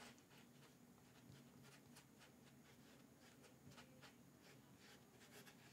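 Near silence: faint room tone with a low hum and a few faint soft ticks.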